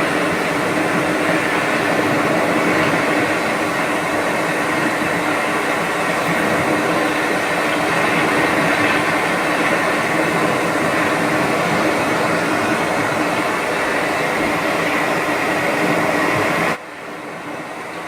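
Steady, even hum-and-noise ambience of a sleep-sound track, with faint steady tones running through it; it drops suddenly in level near the end.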